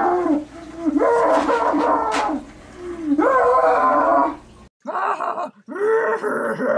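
A man letting out long, anguished wailing howls, three of them each about a second long. About two-thirds of the way in, the sound cuts to a different segment of short voice-like sounds.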